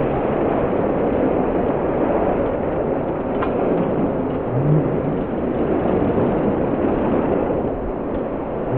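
A bunched pack of road-racing bicycles passing close by in a steady rush of tyre and wind noise.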